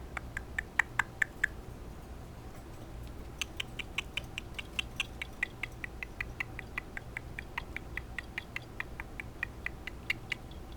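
Severe macaw making rapid clicking noises, short sharp clicks about four a second; the clicking stops for about two seconds near the start, then runs on steadily.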